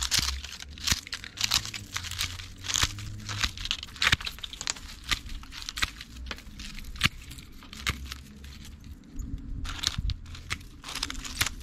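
Hand secateurs snipping through dead, dry sedum stems near the soil: an irregular run of crisp snaps, mixed with the crunch and rustle of the brittle stalks being handled.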